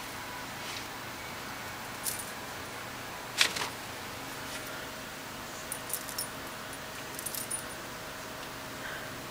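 A few light metallic clicks and jingles, the loudest about three and a half seconds in, with small clusters near six and seven and a half seconds, over a steady faint hum.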